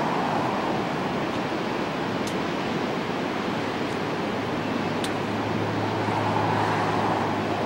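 Ocean surf breaking and washing up a sandy beach: a continuous rushing hiss that swells louder near the start and again near the end as waves break.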